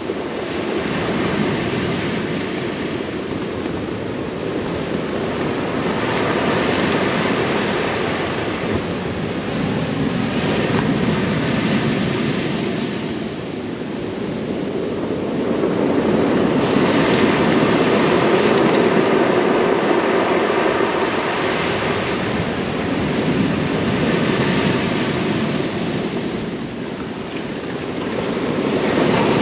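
Surf breaking and washing over a pebble beach, mixed with wind on the microphone; the rushing noise swells and eases every few seconds as waves come in.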